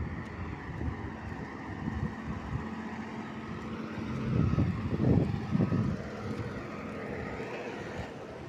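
Road traffic: cars and trucks passing on a nearby road, heard as a steady rush with wind on the microphone, gusting into low rumbles a few seconds in.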